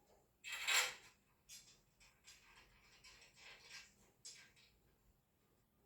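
A few short scraping and rustling handling noises as a screw is turned into the dresser frame, the loudest about half a second in and fainter ones following at uneven intervals.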